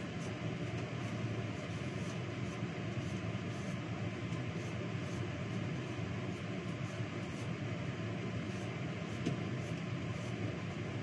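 Steady hum and whoosh of a kitchen ventilation fan, with faint light clicks now and then.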